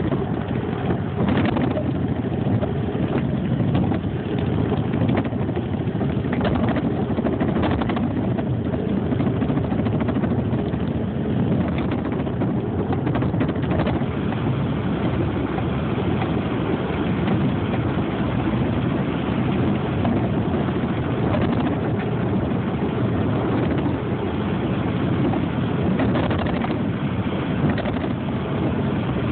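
Steady rumble of a vehicle under way: engine and road noise, with a few faint clicks.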